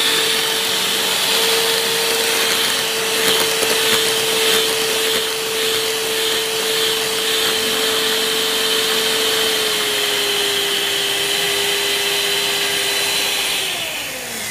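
Electric hand mixer running at its top speed, beaters whipping cream: a steady motor whine with a hiss. The whine dips a little about ten seconds in and falls away near the end.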